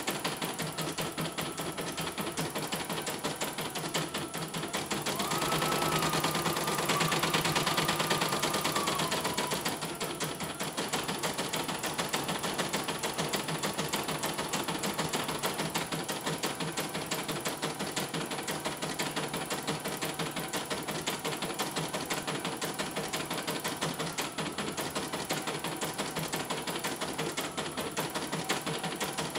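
CNY E900 portable embroidery machine stitching a design: a fast, even stream of needle strokes as the embroidery unit moves the hoop. A louder stretch with a steady whine comes between about five and nine seconds in.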